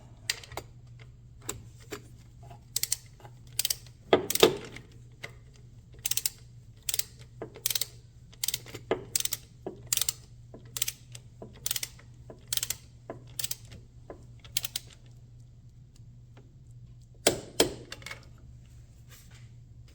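Ratcheting wrench clicking in short strokes, about one click every half to three-quarters of a second, as the power steering pump mounting nuts are tightened toward 16 ft-lb. A louder pair of clicks comes near the end.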